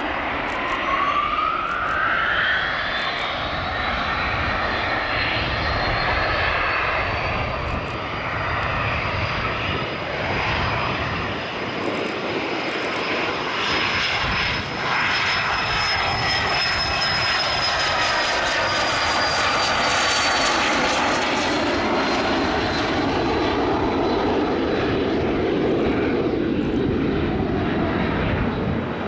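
Boeing 787-9 jet engines running during the landing roll: a steady engine roar with a high whine that rises in pitch over the first three seconds or so, then holds and sinks slightly later on.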